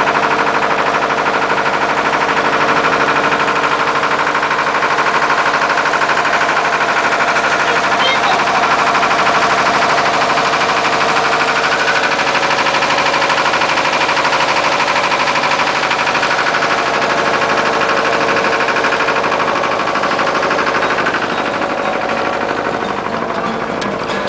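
A boat's engine running steadily under way, a continuous mechanical drone with a fast, even beat, easing slightly near the end.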